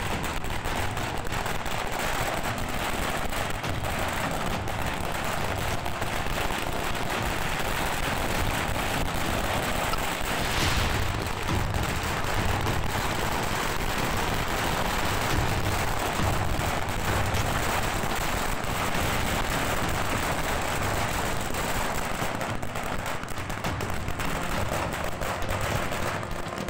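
A long string of firecrackers laid along the road bursting in a rapid, unbroken crackle of bangs that runs on for over twenty seconds.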